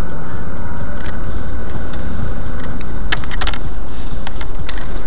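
Car driving: a steady low engine and road rumble, with a few sharp clicks about three seconds in and again near the end.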